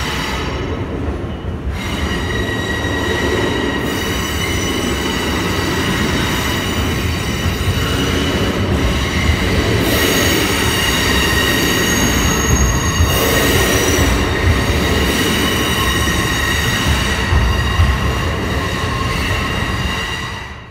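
Bilevel passenger train rolling slowly along the station tracks, its wheels squealing on the rails. Several steady high squeal tones set in about two seconds in, over a low rumble of the cars.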